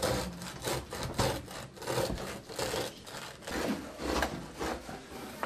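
A serrated bread knife sawing back and forth through a crusty loaf of home-baked bread on a wooden board, in repeated rasping strokes about two a second.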